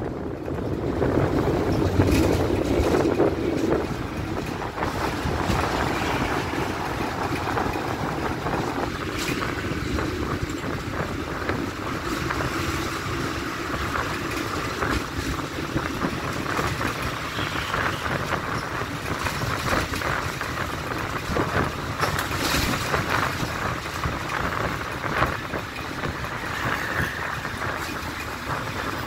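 Steady running noise of a moving vehicle heard from inside, with wind rushing past the open window and scattered light clicks and rattles.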